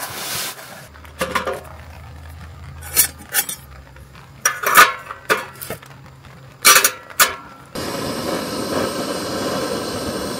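Metal camping gear clinking and knocking as it is handled, a string of separate sharp clinks. Near the end a steady hiss takes over.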